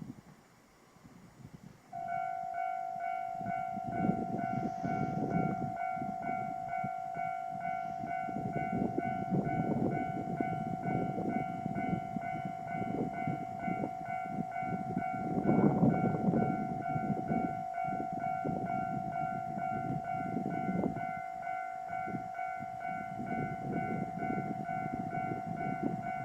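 Railway level-crossing alarm starts about two seconds in and keeps ringing: a steady, rapidly repeating electronic bell tone. Low irregular rumbling runs beneath it and swells loudest around the middle.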